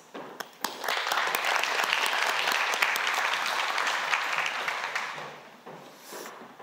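Audience applauding: a spread of many hands clapping that starts about a second in, holds steady for a few seconds and dies away near the end.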